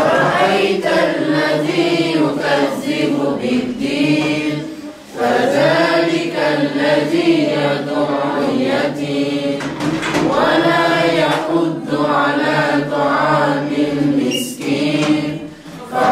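Qur'anic school students reciting the Qur'an aloud together in a chanted unison, in long sung phrases with short breaks about five seconds in and near the end.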